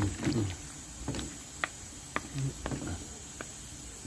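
Wooden spatula stirring pork feet in a thick sauce in a metal pot, with scattered light clicks and knocks as it strikes the pot.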